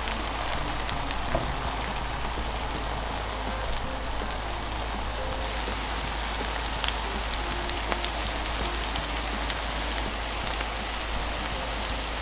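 Grated-potato hash brown patties shallow-frying in oil in a pan: steady sizzling with scattered crackles and one sharp pop about four seconds in.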